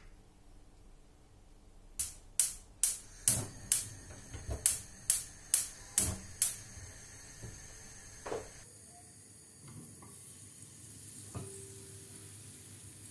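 Gas hob's spark igniter clicking about a dozen times, roughly two and a half clicks a second, until the burner lights under the frying pan. After a knock, a faint steady sizzle of pancake batter frying in the hot pan.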